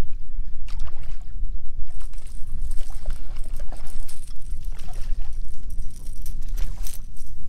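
A rod-and-reel being cranked in against a hooked fish: a thin high whir from about two seconds in, with a few short clicks and knocks, over a steady low rumble.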